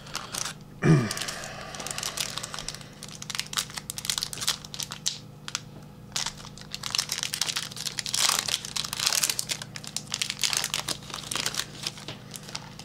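Plastic wrapper of a trading-card pack being torn open and crinkled by hand, an irregular crackling.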